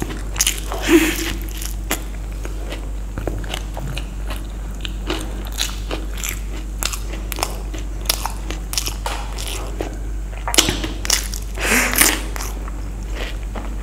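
A person biting and chewing crunchy Indian street snacks: many short crunches and crackles, with louder bites about a second in and again near the end, over a steady low hum.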